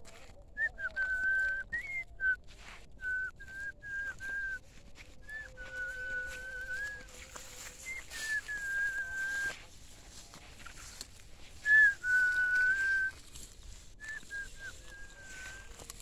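A person whistling a string of held notes, mostly on one pitch with a few higher ones, several starting with a short upward slide.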